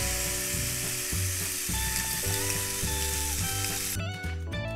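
Marinated chicken breast sizzling on a hot cast-iron ridged grill pan, the sizzle cutting off abruptly about four seconds in. Background music with a steady bass beat plays under it.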